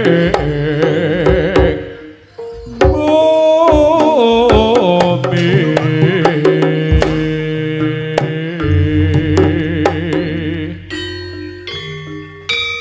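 Live jaranan gamelan music: a wavering lead melody over kendang drum strokes and held gong and metallophone tones. The music dips briefly about two seconds in, comes back loud, and thins to separate struck metallophone notes near the end.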